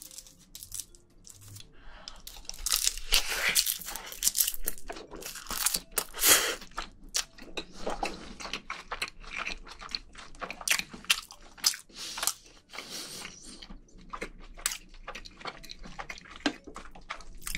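Close-miked chewing and crunching of a mouthful of soy-sauce crab rice wrapped in roasted seaweed. The crunching is densest for the first several seconds after the bite, then settles into softer, slower chewing.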